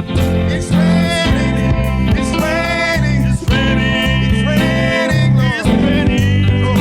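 Live worship music from a church band: instruments playing over a steady beat, with a singing voice holding and bending long notes.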